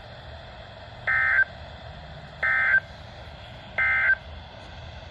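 Three short bursts of EAS/SAME digital data tones from a NOAA Weather Radio broadcast, about a second and a half apart, over faint radio hiss. This is the End of Message signal that closes the severe thunderstorm warning.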